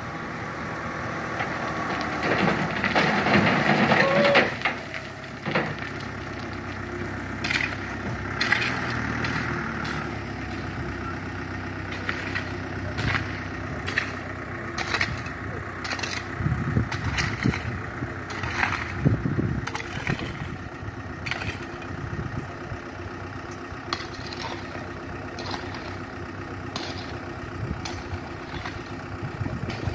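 Dump truck's diesel engine running as the bed tips, swelling louder for a couple of seconds near the start. Then a shovel scraping and clinking against stones again and again over the idling engine.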